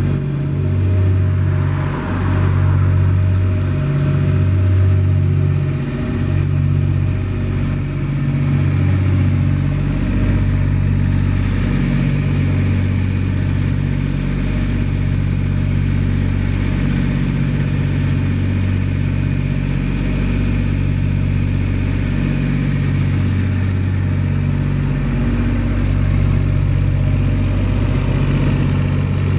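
Diesel engine of a 2011 Ingersoll Rand 7/20 towable air compressor running steadily, a low drone with a slow, regular throb about every second and a half.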